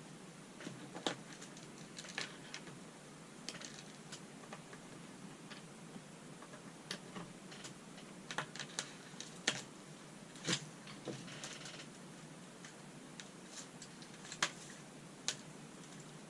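Irregular light plastic clicks and taps from a clamp-on desk power strip and its plugs and cables being handled and fitted into its sockets.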